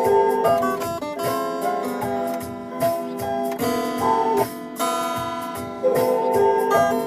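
Instrumental music played on plucked strings, with acoustic guitar picking and strums carrying a melody.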